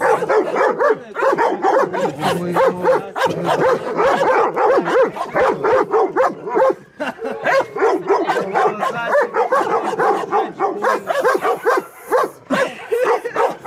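Several dogs, a red pit bull, a fawn pit bull and a German shepherd, barking rapidly over one another, several barks a second, in an aggressive face-off between the dogs.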